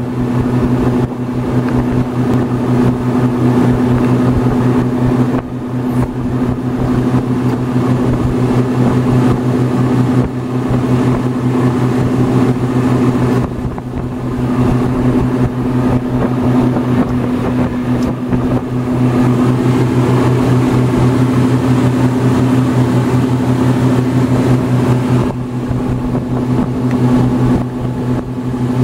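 Ferry's engine running steadily at cruising speed: a low, unchanging drone with a second tone an octave above it, under a steady rushing noise.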